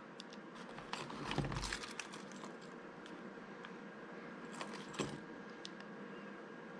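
A bunch of keys jangling and clicking as they are handled, in short rattles with a few light clicks between them.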